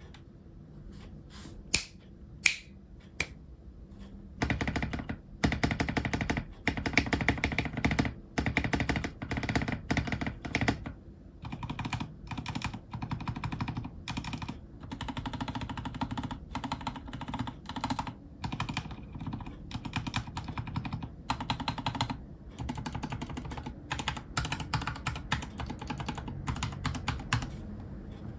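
Typing on a Vortexgear Cypher 65 mechanical keyboard in stock form, with Cherry MX Silver linear switches and PBT OEM-profile keycaps. A few single keystrokes come first. About four seconds in, fast continuous typing starts and runs in bursts with short pauses.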